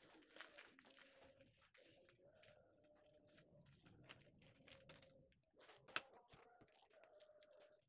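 Faint rattle and patter of dry hamster seed mix, sunflower seeds and grains, pouring from a bag into a plastic tub and then being stirred by hand. Scattered small clicks, with one sharper click about six seconds in.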